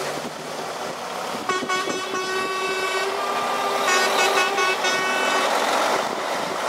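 Trucks driving past with a horn sounded twice, high-pitched blasts of about a second and a half each, over the trucks' running engines.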